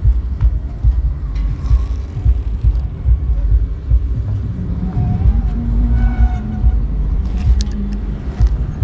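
A loud, uneven low rumble, with a few faint clicks and taps.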